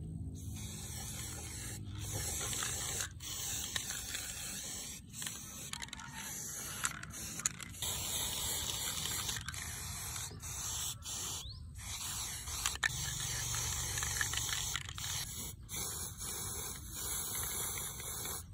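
Aerosol spray-paint can hissing as paint is sprayed in bursts, with many brief breaks between them.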